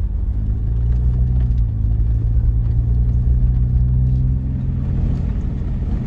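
A Jeep driving on a gravel road, heard from inside the cab: a steady low engine hum over tyre and road rumble. The engine note firms up a little and eases off after about four seconds.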